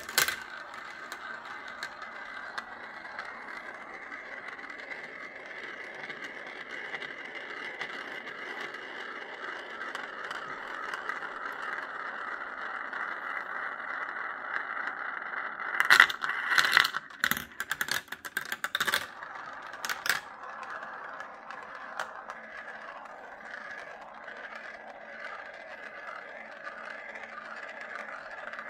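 Glass marbles rolling around the translucent plastic funnels and tracks of a marble run, a steady rolling, scraping sound. From about sixteen to twenty seconds in comes a run of sharp clacks, after which the rolling carries on.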